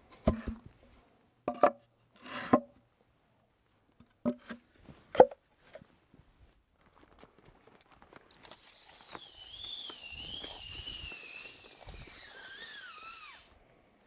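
Several sharp wooden knocks as squared timber blocks are set down and shifted on the ground, the loudest about five seconds in. Later a long high wavering whistle, its pitch dropping at the end.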